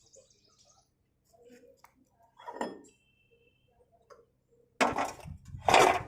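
Metal tools and parts clinking and clattering during rotavator repair, with two loud clanks near the end.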